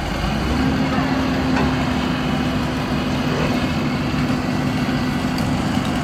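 Large engine running steadily; a steady low hum sets in about half a second in and holds.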